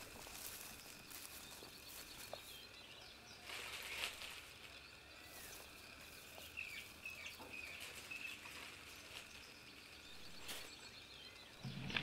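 Faint outdoor ambience with small birds chirping now and then, and a few brief rustles.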